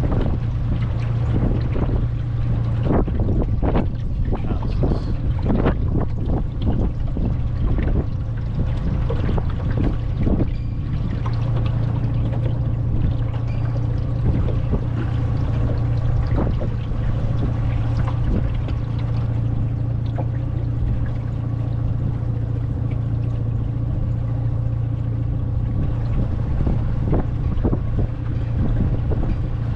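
Small boat engine running steadily under way, a low even hum, freshly serviced with new spark plugs after fouled plugs had made it die. Irregular short knocks sound over it throughout.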